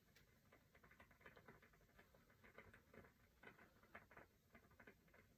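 Near silence with faint, quick scratching and tapping of an eyeshadow brush being stroked across the eyelid.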